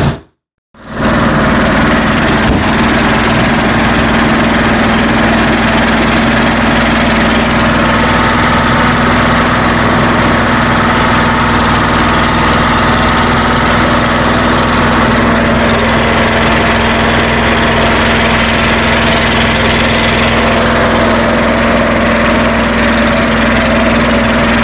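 BJR Falcon 40 articulated tractor's engine running steadily at an even speed, heard from the driver's seat. The sound drops out for about half a second just after the start.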